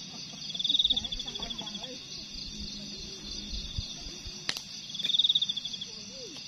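Night insects, crickets, trilling steadily in a high, rapidly pulsing buzz that swells louder twice, about a second in and again near the end. A single sharp click comes about halfway through.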